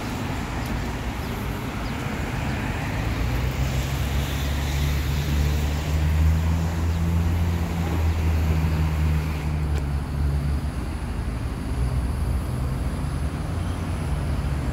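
Road traffic on a busy road: a steady wash of passing vehicles, with one vehicle's low engine hum swelling in the middle and fading again.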